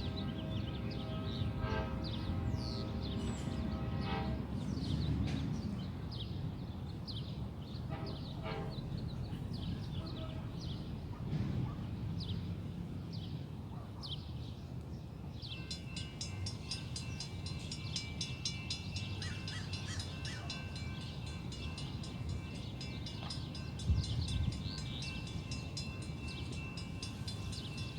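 Small birds chirping over a low outdoor rumble while a distant train horn sounds for the first few seconds as the train approaches. From about halfway, railroad grade-crossing warning bells start ringing in a fast, even repeat.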